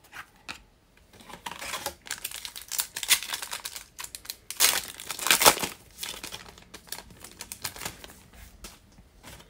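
Foil wrapper of a trading-card pack being torn open by hand, crinkling loudly in bursts for a few seconds, then softer rustling near the end.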